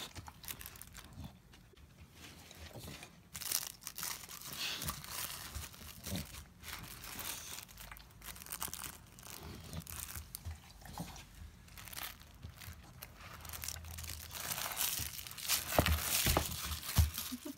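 A Staffordshire bull terrier chewing and tearing at a plush fabric duck toy: scratchy ripping and crinkling of cloth with irregular chomps, the loudest rips near the end as the toy is torn open.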